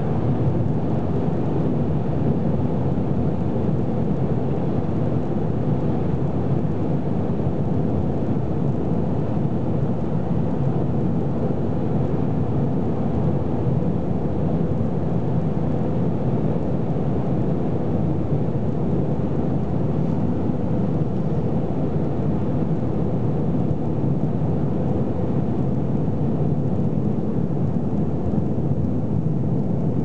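Steady low rumble of road and wind noise inside a car's cabin while cruising on a highway.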